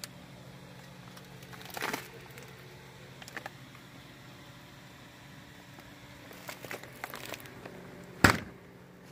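Steady low hum of store freezer cases, with faint rustles and clicks from the phone being handled. One sharp knock comes near the end.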